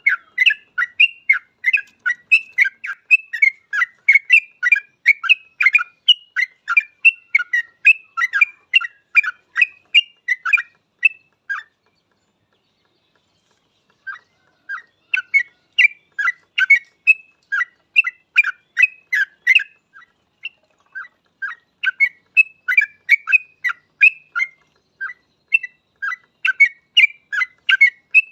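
Yellow-vented bulbul (trucukan) singing vigorously: a rapid run of bubbly chattering notes, a few per second. The song breaks off for about two seconds midway, then resumes.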